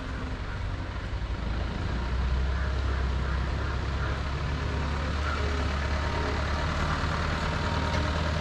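Truck engine idling with a steady low hum, growing louder about two seconds in.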